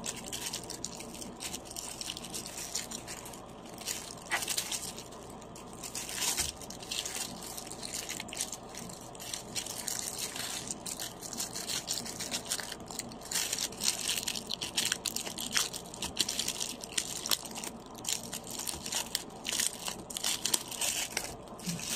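Plastic packaging around a sling bag crinkling and crackling as hands handle it and pull it open, a continuous run of small crackles.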